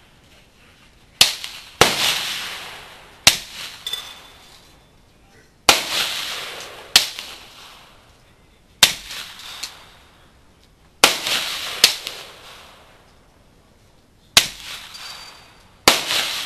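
AR-15 rifle in .300 Blackout firing subsonic rounds: about ten sharp shots, one to two seconds apart, each dying away in an echo. A faint metallic ring of the hanging steel target is heard after a couple of the shots.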